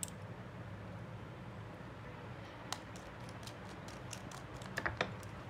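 Light clicks and taps of small tools and phone parts being handled during a smartphone repair, over a steady low hum. A quick run of faint clicks comes about three seconds in, and a few louder clicks come near the end.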